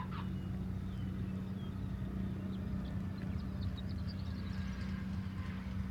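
Cessna 150's Continental O-200 four-cylinder engine at low power as the plane touches down and rolls along the runway: a steady low drone.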